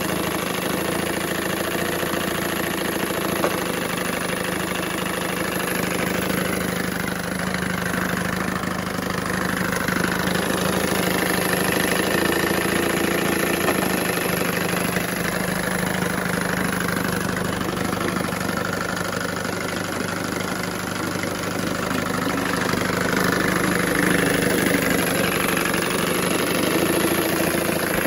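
1970 Johnson 6 hp two-stroke outboard motor running steadily in a water-filled test barrel, the water churning around its lower unit.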